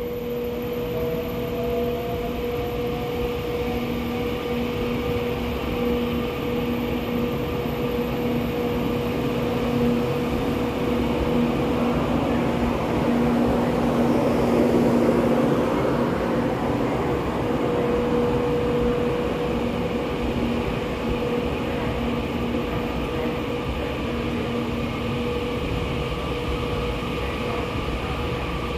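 A Taiwan Railway EMU900 electric multiple unit moving along the platform as it departs, with the steady hum and whine of its electric drive over the rumble of its wheels on the rails. A faint whine rises in pitch over the first few seconds, and the sound is loudest about halfway through.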